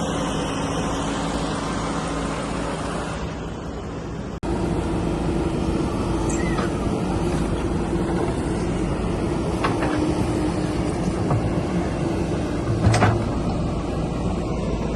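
Diesel engine of heavy earthmoving machinery running steadily, cutting abruptly to a louder, higher-pitched engine note about four seconds in, with a brief knock near the end.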